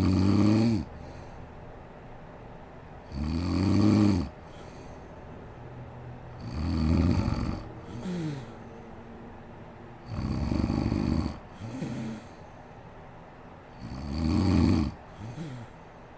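A sleeping woman snoring in a regular rhythm, five snores about three and a half seconds apart. Each snore is followed by a short, quieter sound that glides down in pitch.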